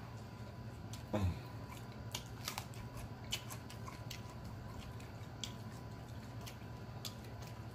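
Mouth clicks and wet smacking from a person chewing fast food, with one short vocal sound falling in pitch about a second in.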